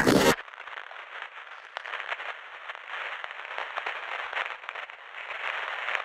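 The music cuts off a moment in, leaving thin, tinny crackling static dense with fine clicks, like worn record surface noise, which fades out near the end.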